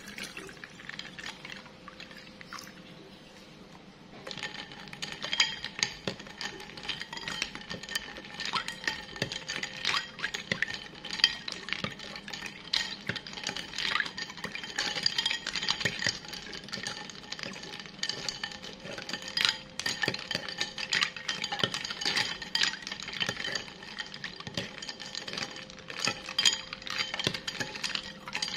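Drinking water pouring into a glass bowl of ice cubes. About four seconds in it gives way to a metal spoon stirring the ice, clinking rapidly and ringing against the ice and the glass bowl.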